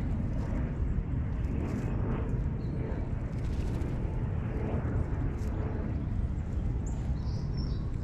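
Outdoor backyard ambience dominated by a steady low rumble, with a few faint, short, high-pitched bird chirps near the end.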